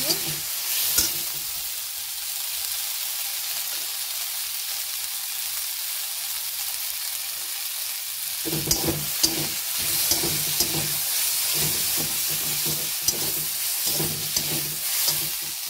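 Eggplant, green peas and spice paste sizzling in oil in a metal wok. From about halfway through, a metal spatula scrapes and stirs against the pan in quick repeated strokes, roughly two or three a second.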